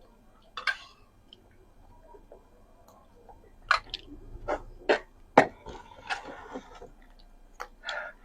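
Mouth sounds of eating close to the microphone: chewing with scattered wet smacks and clicks, most of them packed between about three and a half and six seconds in.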